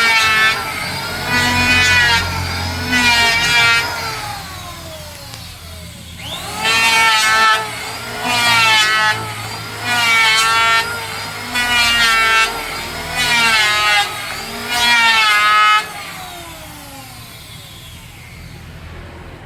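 Electric hand planer cutting a wooden board in repeated short passes, each pass a loud burst of about a second as the blade bites and the motor loads. The motor winds down around four seconds in and whines back up about six seconds in for six more quick passes, then winds down again near the end.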